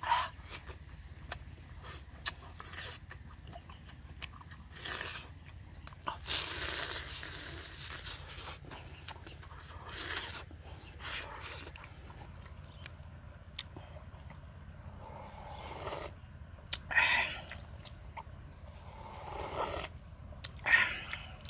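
A person eating close to the microphone: chewing, lip smacks and sucking on pieces of boiled pig's leg, in scattered bursts. Near the end, slurps of broth sipped from a bowl.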